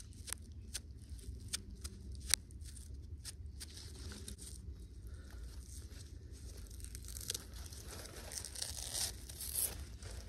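Fibrous tree bark being pulled apart and peeled by hand, its fibres snapping in a run of sharp cracks over the first few seconds. About seven seconds in comes a longer, rougher tearing as a strip is ripped from the log. The bark is being stripped for cordage fibre.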